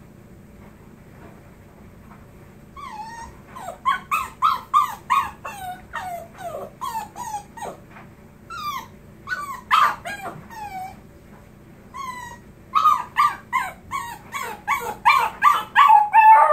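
A puppy whining and yelping in short cries that fall in pitch, in two bouts. The second bout comes faster and rises into a drawn-out howl near the end.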